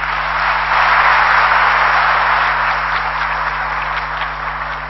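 Large audience applauding in a hall, swelling within the first second and then slowly tapering off.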